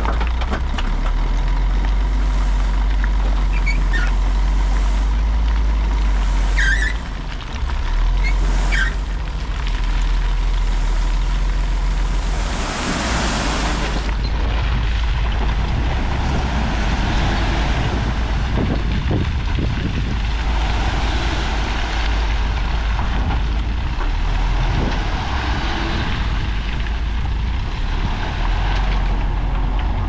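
Heavy diesel earthmoving machinery, a bulldozer and dump trucks, running steadily under load, with short high squeaks a few times in the first ten seconds. A loud hiss of air comes about 13 seconds in.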